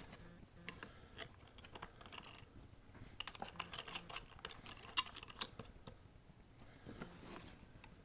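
Faint, scattered clicks and light taps of hands handling parts as the black knob covers are fitted back over the DIY rotary encoders, with one sharper click about five seconds in.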